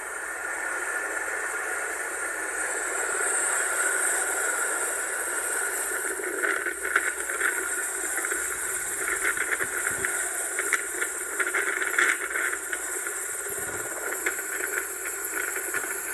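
Helicopter hovering: steady turbine whine and rotor noise, growing a little louder about four seconds in and turning choppy and fluttering from about six seconds on.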